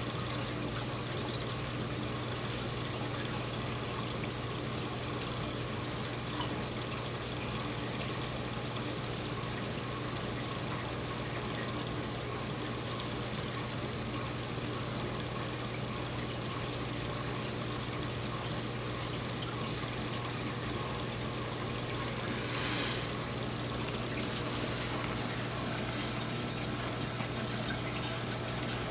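Saltwater aquarium's water circulation: water trickling and pouring steadily over a constant low pump hum, with two brief louder hisses about three-quarters of the way through.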